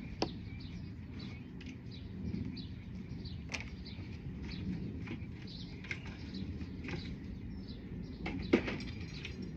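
Small birds chirping over a low steady background rumble, with a few sharp clicks or knocks, the loudest one near the end.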